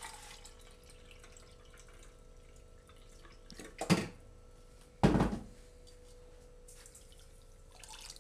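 Water trickling from a filter jug into a plastic measuring cup at the start, then two hard knocks about a second apart a little past the middle, the second heavier and ringing briefly, as things are set down on the kitchen counter. Near the end the water begins to pour from the cup into a saucepan of sugar.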